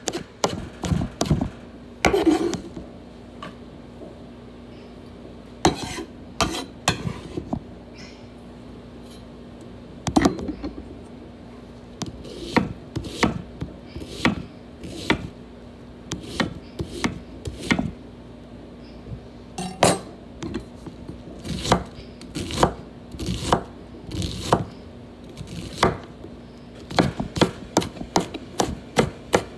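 Chef's knife chopping herbs and an onion on a wooden cutting board: irregular runs of sharp knocks on the board, broken by short pauses.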